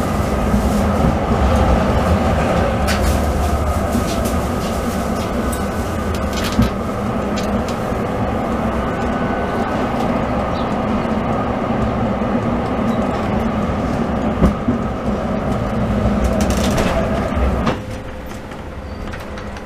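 Oslo tram running along street track, heard from inside the front of the car: a steady rumble of motors and wheels on rail, with a few sharp clicks and knocks. It grows quieter near the end.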